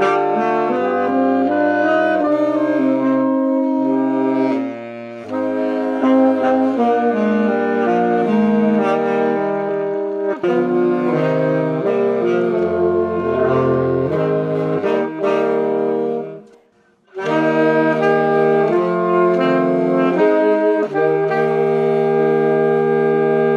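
Saxophone quartet playing a slow piece in close harmony, moving from chord to chord. The playing stops for a moment about two-thirds of the way through, then resumes and settles into a long held chord near the end.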